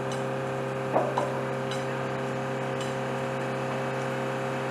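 Steady machine hum with a few fixed low tones under a hiss, with a brief higher sound about a second in.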